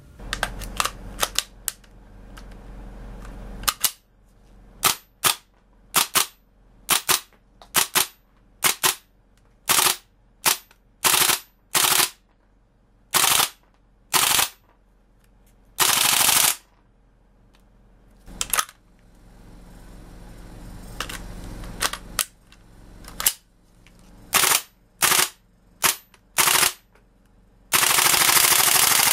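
WE-Tech MP5 gas blowback airsoft gun firing sharp single shots, often two or three a second, with a short burst around the middle and a longer full-automatic burst near the end.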